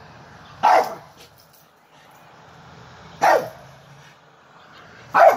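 Small dog barking three times, single barks about two and a half seconds apart, at a plane passing high overhead.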